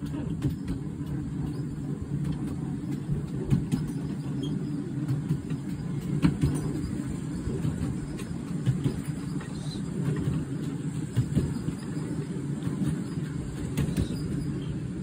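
Miniature railway train running along its track, heard from a car of the moving train: a steady low rumble of wheels on rail with scattered clicks and knocks.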